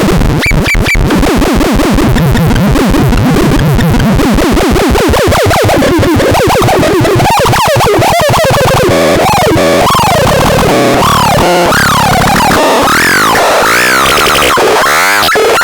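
Electronic synthesizer noise: a harsh, fast buzzing pulse that turns into swooping, warbling pitch sweeps rising and falling over each other, higher and more scattered in the second half.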